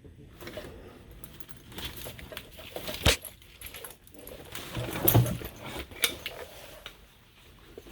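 Small metal items clinking and rattling as they are handled, with a sharp knock about three seconds in and a louder bout of rattling and rustling around five seconds in.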